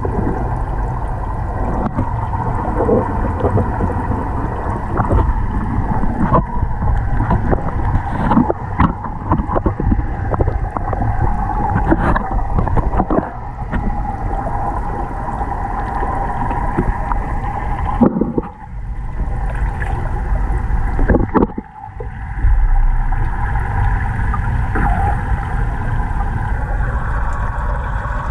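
Muffled underwater sound inside a large fish tank: a steady low rumble of moving water with a faint hum, broken by many short knocks and clunks.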